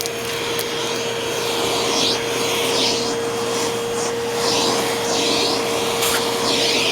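Eureka Boss Smartvac 4870 upright vacuum cleaner running with a steady motor whine, swishing about once a second as it is pushed back and forth over the floor.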